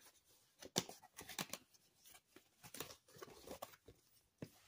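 Cardstock greeting card being handled and folded open panel by panel: a string of faint, irregular paper rustles and light taps, the sharpest about a second in.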